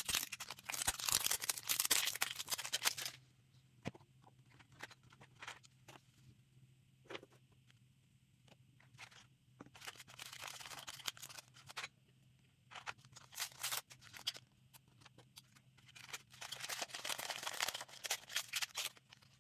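Plastic toy packaging being torn open and crinkled by hand, in four bouts of crackling with small clicks and taps between them.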